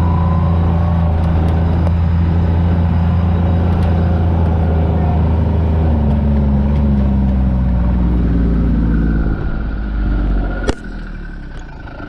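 A side-by-side utility vehicle's engine running under way, its note shifting about halfway through. It drops off markedly near the end, just before a sharp click.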